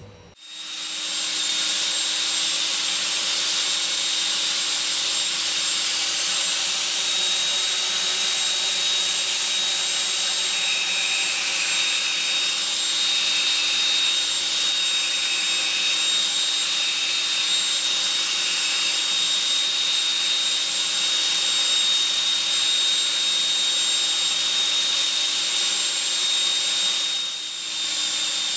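Electric ducted fan of a model rocket running at speed on a test rig: a steady loud whine with a strong hiss. A fainter wavering tone comes and goes in the middle, and the sound dips briefly near the end.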